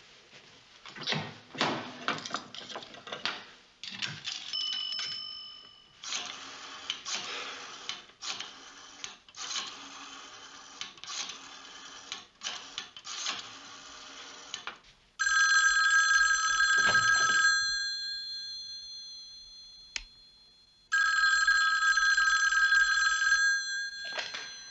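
A run of short clicks and clatter, then a telephone bell rings twice, each ring about two seconds long with a pause of a few seconds between.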